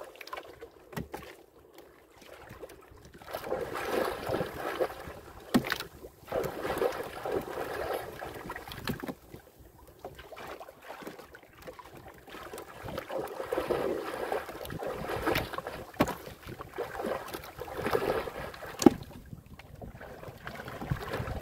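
Water sloshing against the hull of a small wooden outrigger boat at sea, swelling and fading every few seconds, with wind on the microphone and a few sharp knocks, the loudest near the end.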